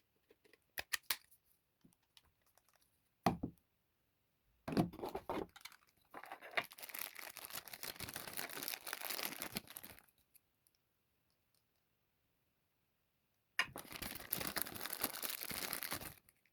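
Packaging being unwrapped: a few light clicks and a single knock, then two long spells of crinkling, tearing plastic or paper wrapping, the first about five seconds long, the second about three, with a pause between.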